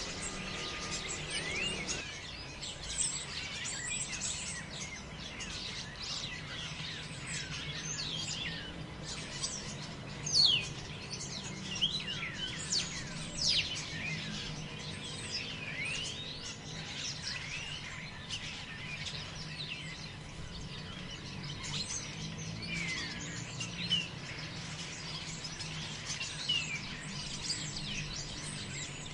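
Many birds chirping and calling at once, short rising and falling whistles overlapping without pause, with one louder call about ten seconds in, over a steady low background rush.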